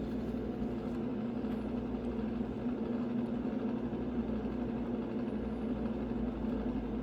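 Steady low machine hum with an even pitch, holding level throughout.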